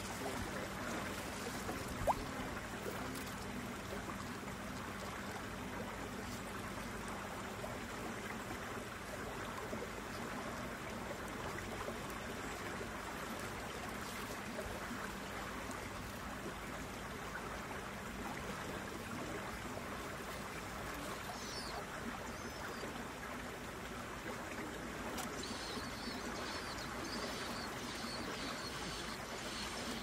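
Steady rush of flowing water, with one sharp click about two seconds in. Faint high bird chirps come in during the last few seconds.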